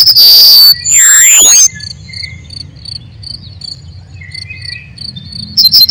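Crickets chirping: short, high, evenly repeated chirps. These are framed by very loud, shrill passages: a rapid train of pulses and a held trill at the start, and another pulse train starting just before the end. About a second in there is a loud sweeping, gliding whistle-like sound.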